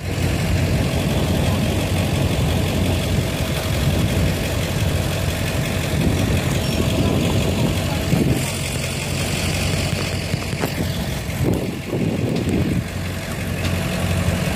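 Vehicle engine idling with a steady low hum, easing off briefly about twelve seconds in.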